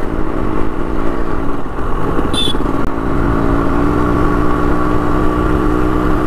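Yamaha RX100's two-stroke single-cylinder engine running as the motorcycle rides along, its note settling into a steady even pitch after about three seconds. A brief high-pitched chirp sounds once, a little before the middle.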